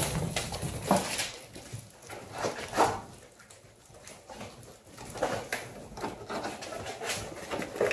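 Vizsla puppies scrabbling about on a tile floor and in and around cardboard boxes: scattered claw clicks and scuffs, with a few short puppy yips. It is quieter for a while in the middle.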